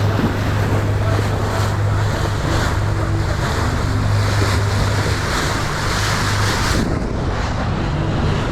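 Boat under way: a low steady engine drone under the rush of water along the hull and wind buffeting the microphone. The hiss eases about seven seconds in.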